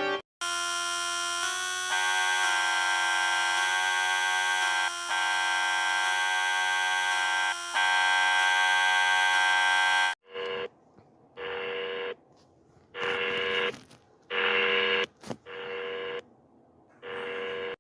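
Synthesized emergency-alert alarm tones. A loud steady chord of electronic tones shifts pitch three times and cuts off suddenly about ten seconds in. Then come six or so separate electronic tone blasts, each about a second long, with short gaps between them.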